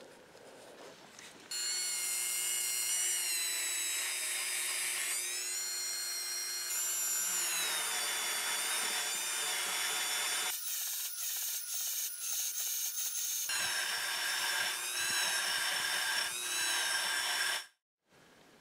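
Handheld rotary tool with a small abrasive point running at high speed against cast iron, a high whine that shifts in pitch a few times as it bears on the metal. It starts about a second and a half in and cuts off suddenly near the end.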